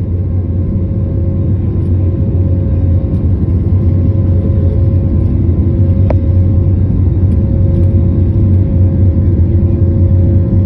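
Steady, loud drone of an airplane cabin in flight: engine and airflow noise with a constant low rumble and a faint steady hum above it. A single short click about six seconds in.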